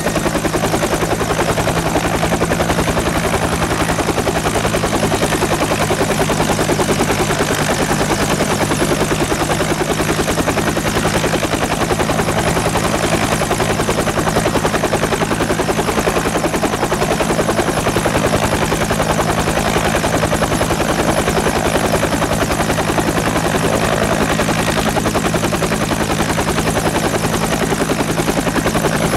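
Bell UH-1H Iroquois 'Huey' helicopter running steadily: the rapid, regular beat of its two-bladed main rotor over the steady whine of its Lycoming T53 turboshaft.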